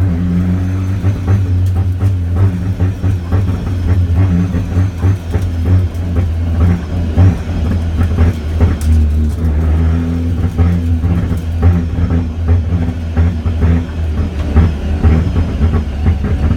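Car engine running under load at a fairly steady speed, with many short sharp pops and knocks over its steady drone.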